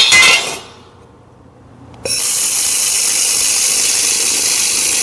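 Steady high-pitched hiss of a handheld laser welder tack-welding steel, with its argon shielding gas flowing. The hiss falls away about half a second in and cuts back in abruptly about two seconds in.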